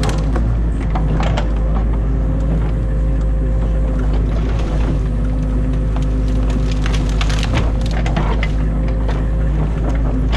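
Excavator's diesel engine running steadily, heard from inside the cab, with branches and sticks of a beaver dam cracking and snapping as the bucket pulls them out. The snaps come in clusters, densest about seven to eight seconds in.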